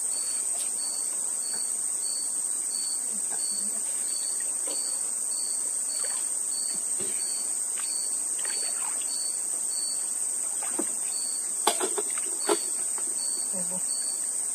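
Insects calling in a steady high-pitched chorus, with a second insect chirping in even pulses about twice a second. A few faint knocks and clicks, the sharpest ones near the end.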